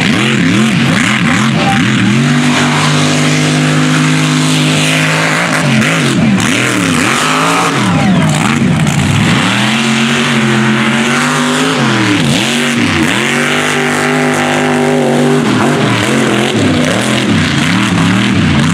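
Mega truck engines revving hard at full throttle on a dirt course. The pitch is held high for a couple of seconds at a time, then drops and climbs again many times in quick succession as the trucks launch and spin their tyres in the dirt.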